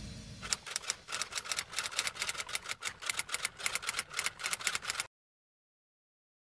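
Typewriter key-clack sound effect: a rapid, uneven run of sharp clicks, about seven or eight a second, playing as the on-screen caption types itself out. It stops abruptly about five seconds in.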